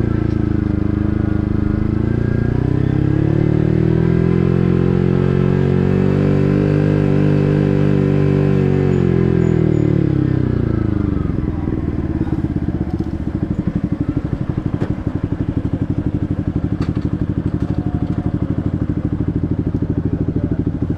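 Yamaha MT-15's 155 cc single-cylinder engine through an SC Project full-system exhaust. The engine note climbs a couple of seconds in, holds for several seconds, then falls away about ten seconds in. After that it settles into a low, evenly pulsing idle.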